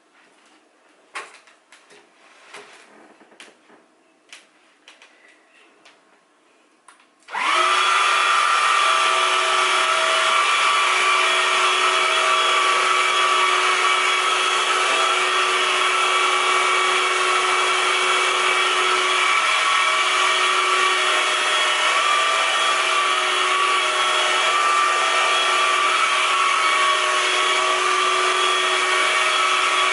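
A few light clicks and knocks, then about seven seconds in a loud, steady motor whirr with a held whine starts suddenly and runs on without change.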